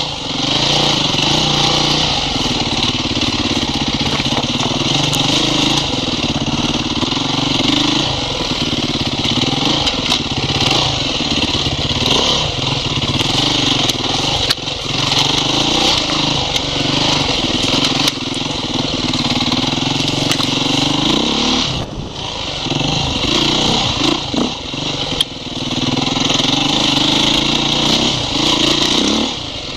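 Off-road motorcycle engine running under the rider, its pitch rising and falling as the throttle opens and closes, over steady wind and engine hiss. The revs drop briefly about three-quarters of the way through and again near the end.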